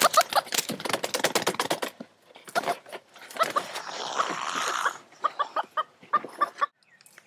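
Chickens clucking in runs of short, quick calls, about four or five a second, over rustling and knocking. There is a louder burst of rustling about four seconds in, and the clucking stops near the end.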